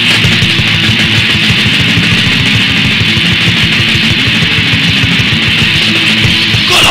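Raw, lo-fi extreme metal from a 1987 demo tape: distorted electric guitar riffing over fast drumming. A shouted vocal comes in right at the end.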